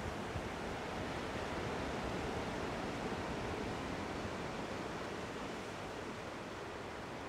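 Ocean surf: a steady, even rushing wash of waves.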